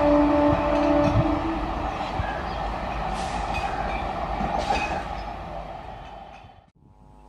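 EMU suburban electric train sounding a steady horn tone that stops about a second in, then the rumble and wheel clatter of the train on the rails fading as it moves away. The sound cuts off suddenly near the end.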